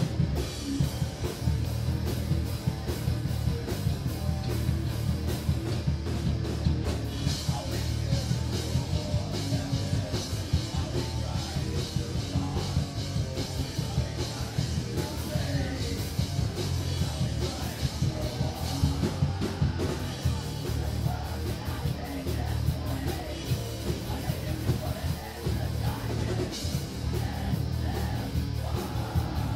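Live rock band playing loud, with drums and guitar, and a vocalist yelling into a microphone.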